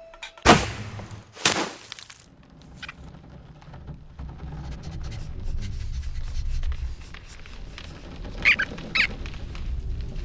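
Animated-film sound effects: two sharp swishing hits about half a second and a second and a half in, then a low rumble that slowly builds, with two short high squeaks near the end.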